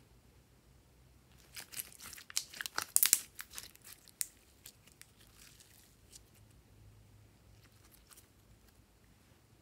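Glossy pink glitter slime being pulled and stretched by hand, crackling and popping as it stretches and tears, a thick run of pops about two seconds in, then a few scattered pops as it is folded up.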